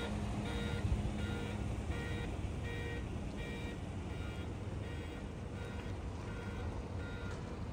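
Ferry shuttle bus moving slowly past with its engine running, under a short electronic warning beep repeated about twice a second.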